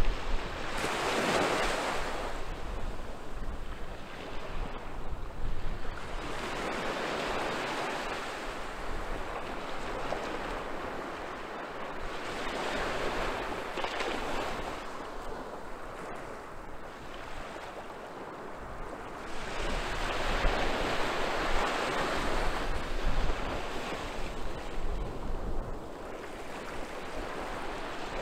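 Small sea waves breaking and washing up a sandy beach, the surf rising and falling every several seconds as each wave comes in. Wind rumbles on the microphone at times.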